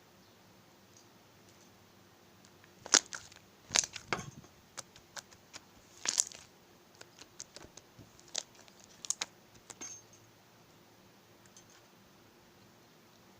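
Slime being pressed and squished by hand, giving a run of sharp crackles and clicky pops from about three to ten seconds in, loudest in the first few seconds of the run.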